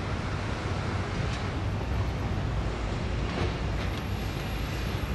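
Steady low rumble of city traffic, with a few faint clicks and a thin, high, steady whine that comes in about three and a half seconds in.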